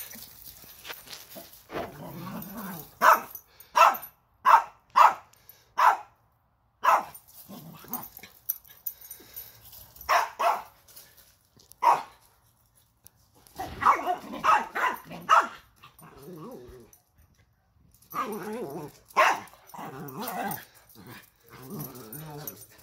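Dogs barking in rough-and-tumble play: a string of short, sharp single barks with pauses between them, and a busier stretch of barking mixed with lower, rougher noise in the second half.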